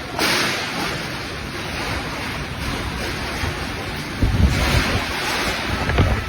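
Storm wind rushing steadily, with heavy gusts buffeting the microphone about four seconds in and again near the end.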